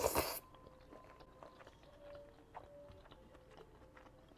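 A short, loud slurp as a strand of fettuccine Alfredo is sucked into the mouth, then faint chewing with soft mouth clicks.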